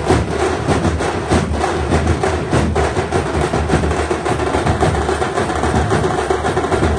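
Street drum troupe playing together: many handheld frame drums struck with sticks and large slung drums beaten in a steady, dense rhythm.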